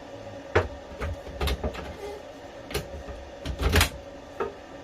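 A toilet seat being released with its button and lifted off its locating pins: a series of irregular clicks and knocks, with a louder clatter about three and a half seconds in.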